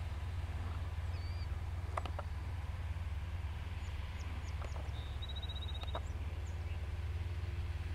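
Outdoor field ambience: a steady low wind rumble on the microphone, with a few scattered bird chirps and a short rapid trill about five seconds in.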